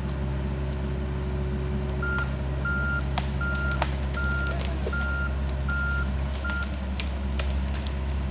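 Mini excavator's diesel engine running steadily while its travel/back-up alarm beeps seven times, about one beep every two-thirds of a second, as the machine moves. A few sharp knocks and cracks come through the middle of it.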